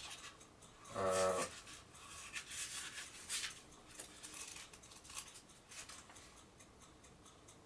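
Faint rustling and light clicks of handling, with a short pitched vocal hum about a second in.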